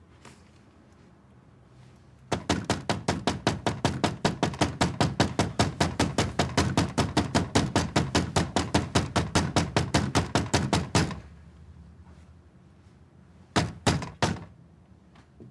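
A fist knocking hard on a front door: a long, fast run of about five knocks a second lasting some nine seconds, then, after a short pause, three more knocks near the end.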